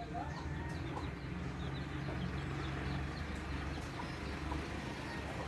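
Chickens clucking faintly now and then over a steady low hum.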